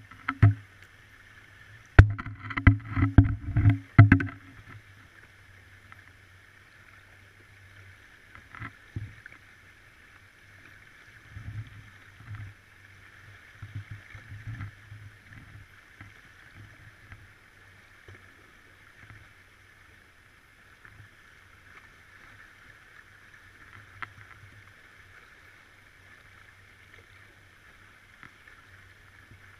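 Muffled underwater sound picked up by a submerged camera: a cluster of sharp knocks and clicks in the first few seconds, then a steady hum with scattered soft low thuds.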